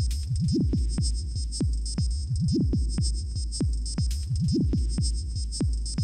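Electronic outro music with a steady beat about twice a second over a low held bass and fast ticking high notes.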